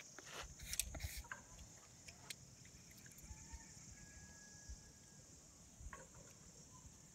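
A few faint clicks of small mosaic tiles being set by hand into mortar in the first second or so. After that there is quiet outdoor ambience with a steady high hiss.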